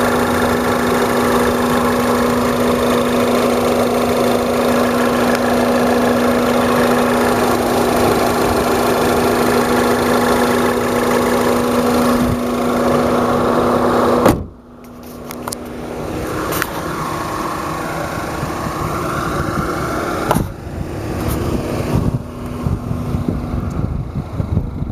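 1.6-liter turbocharged four-cylinder engine of a Mini Cooper S Countryman idling steadily, heard close up. About fourteen seconds in, a sharp thump, after which the engine sounds much quieter.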